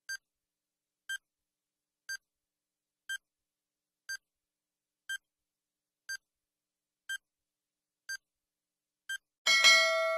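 Quiz countdown timer sound effect: short electronic beeps, one a second, ticking off the last ten seconds. Near the end a louder time's-up signal sounds, a sudden noisy hit that rings on as a chord for about a second.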